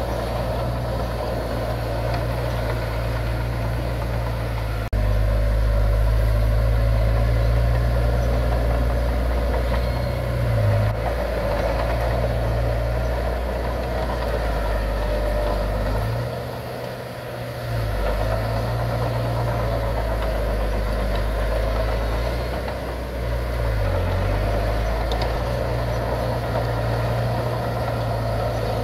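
Heavy diesel earthmoving machinery running steadily at a construction site. The sound jumps abruptly about five seconds in, the engine note shifts near eleven and twenty-four seconds, and it drops away briefly near seventeen seconds as the load eases.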